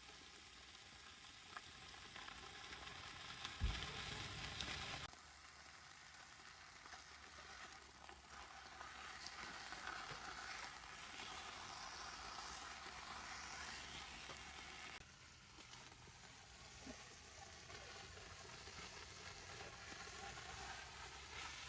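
Food frying in a pan, a faint steady crackling sizzle that changes abruptly about five and fifteen seconds in, with one low thump about four seconds in.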